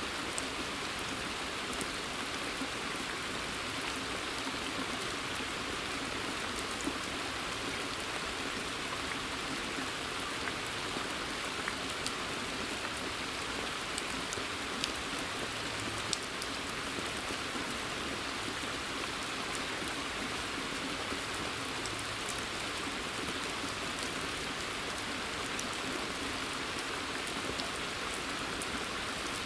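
Steady rain falling in a forest and on the surface of a pond, a dense even patter with scattered louder ticks from single drops.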